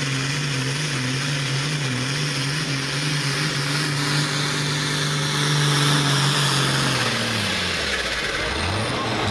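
John Deere hot farm pulling tractor's diesel engine running hard at a steady high pitch while dragging a weight-transfer sled. About seven seconds in, the engine speed falls away sharply.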